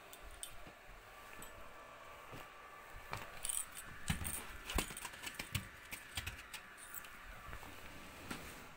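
A spatula clinking and scraping against a metal kadhai as potatoes and green chillies are stirred: a string of light clicks and knocks, busiest in the middle few seconds.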